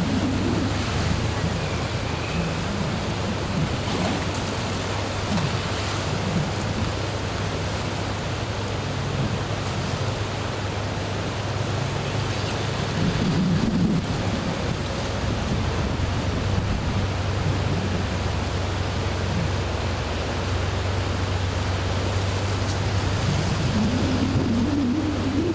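Steady rushing of a river in flood, swollen by typhoon rain, with a continuous low rumble underneath.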